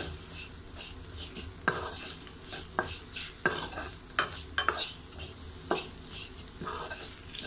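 Spatula scraping and stirring a rasam tempering of coarsely ground pepper, cumin, curry leaves, crushed garlic and dried red chillies in a metal kadai, over a light sizzle of the spices frying in a little oil. The scrapes come irregularly, about ten times.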